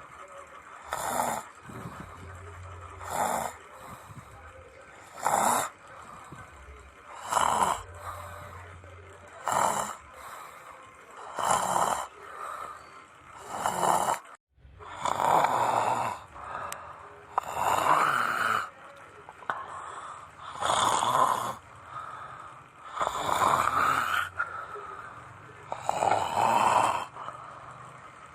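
A person snoring in a steady rhythm, one snore about every two to three seconds, a dozen or so in a row.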